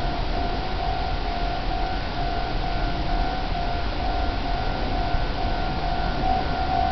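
Railway level-crossing alarm ringing: one steady high tone repeating in short, even pulses over low background noise. It is the warning that a train is approaching.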